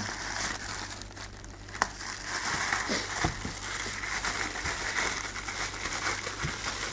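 Plastic packaging crinkling and rustling as it is pulled open and handled, with a sharper click a little under two seconds in.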